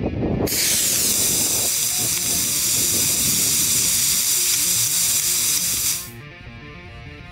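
E6 model rocket motor igniting about half a second in and burning with a loud, steady hiss for about five and a half seconds, then cutting off suddenly at burnout.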